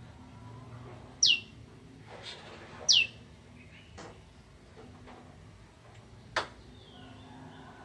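Prenjak (prinia) calling: two loud, sharp chirps that each sweep down in pitch, about a second and a half apart, followed later by a couple of fainter short clicks.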